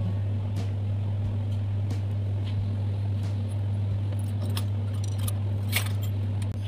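Scattered light clicks and metallic clinks of wires and tools being handled at an electrical control panel, a little sharper and more frequent about five seconds in, over a steady low hum.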